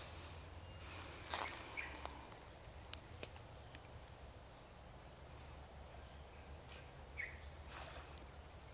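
Faint outdoor pond ambience: a steady high insect drone with a low hum under it, a short hiss about a second in, and two brief chirps, one about two seconds in and another near the end.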